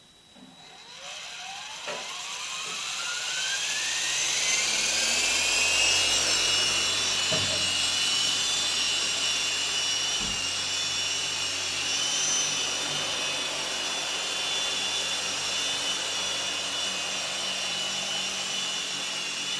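Esky Big Lama coaxial RC helicopter's electric motors and twin rotors spooling up, a whine rising in pitch over the first few seconds, then running steadily as it flies and hovers.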